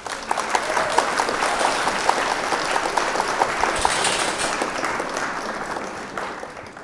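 Crowd applause: many hands clapping densely, fading away near the end.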